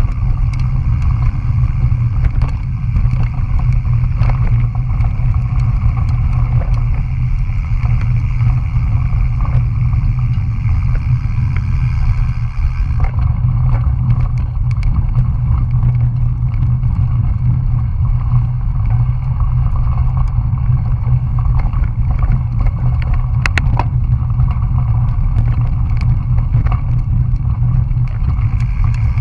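Wind buffeting the microphone of a bicycle-mounted GoPro while riding, a steady low rumble mixed with tyre noise on a dirt road. There are a few sharp clicks and rattles from the bike.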